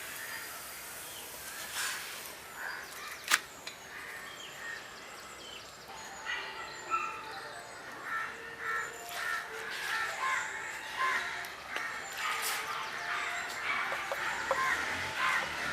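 Birds calling and chirping in many short notes over a steady outdoor hiss, with one sharp click about three seconds in and a few fainter clicks later.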